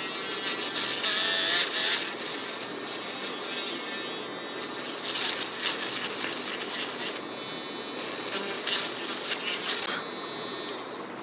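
Small handheld electric mini drill running with a steady high whine as its fine bit bores through an MDF disc, with a rough scratching from the bit cutting the board. The motor winds down near the end.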